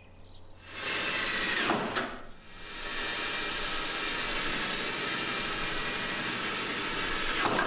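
Power drill running under load while drilling a mounting hole: a short run that stops near two seconds in, then a longer steady run.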